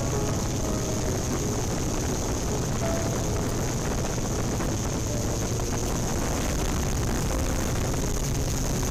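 Yuneec Typhoon Q500+ quadcopter's motors and propellers running in flight, a steady whir with a low hum underneath.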